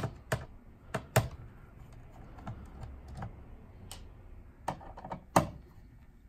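Irregular light clicks and taps, about ten of them spread unevenly, as a screwdriver works the small T10 screws out of a TiVo Bolt's case and the plastic case is handled.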